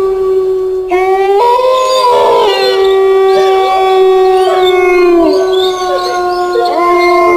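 A chorus of canine howls: several voices overlap in long held notes, with new howls sliding up in pitch about a second in and again near the end, and wavering higher cries in between.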